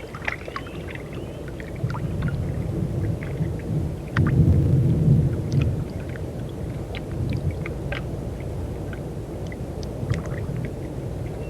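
Thunder rumbling low, swelling about two seconds in and loudest around the middle before easing off, with scattered sharp ticks of a storm coming on.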